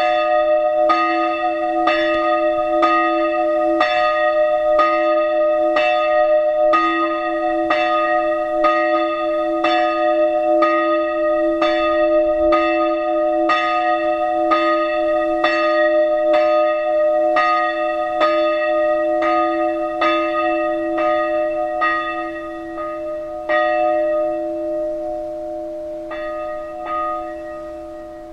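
Church bells ringing, with a clapper stroke about once a second over the bells' steady hum. Near the end the strokes thin out and grow irregular, and the sound dies away as the ringing comes to a stop.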